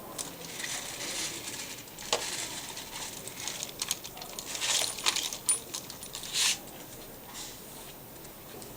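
Rustling and scattered sharp clicks of small objects being handled, with a brief thin high tone about five seconds in.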